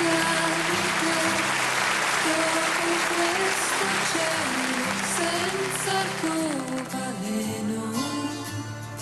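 Background music: a song with guitar and a gliding melody line over a steady bass.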